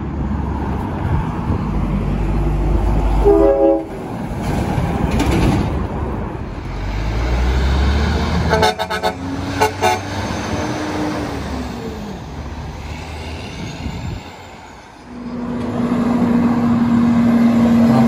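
Semi-trucks passing at speed, with a heavy rumble of engines and tyres and blasts of truck air horns. A short horn chord sounds about three seconds in, a horn note falls slightly in pitch as a truck goes by around ten seconds, and a long steady horn blast begins about fifteen seconds in.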